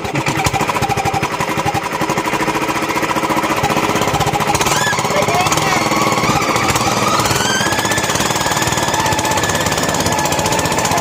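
Small engine of a motorised rail trolley running with a rapid, steady chugging as the cart travels along the track; it cuts in suddenly at the start.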